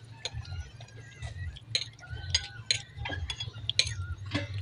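Metal spoons clinking and tapping against ceramic bowls and plates while eating: many short, light clinks at irregular intervals over a steady low hum.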